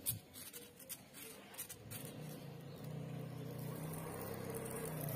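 A motor vehicle's engine running: a low, steady hum that grows louder from about two seconds in, after a few light scattered clicks.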